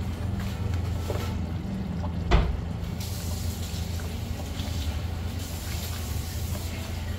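Metal spoon stirring and lifting thick creamy gravy in a nonstick kadai, with small clicks and one sharp knock of the spoon against the pan about two and a half seconds in, over a steady low hum.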